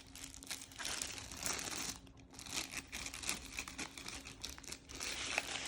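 Plastic packaging crinkling and rustling as it is handled, in uneven crackly bursts, with a sharp knock near the end.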